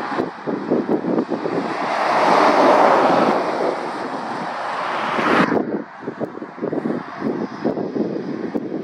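Articulated lorry driving past at road speed, its tyre and engine noise swelling to a peak about three seconds in and then fading, with wind buffeting the microphone. The sound cuts off abruptly about halfway through, leaving quieter road noise and wind.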